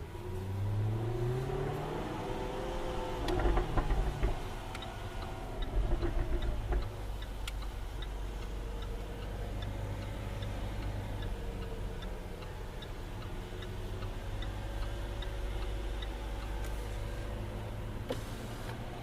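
Jaguar F-Type R's supercharged V8 pulling hard with the note climbing for a couple of seconds, then a few sharp exhaust crackles about three to four seconds in and a couple more a little later. After that it settles to a steady drone, with a light regular ticking about twice a second through the middle.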